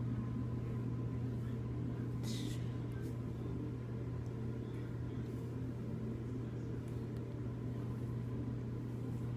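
A steady low hum, with a brief soft noise about two seconds in.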